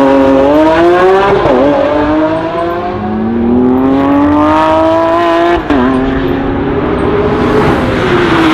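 Lamborghini Aventador's V12 engine revving hard as the car accelerates on a race track. The pitch climbs steadily, with sudden drops about a second and a half in and again near six seconds, as it changes up through the gears.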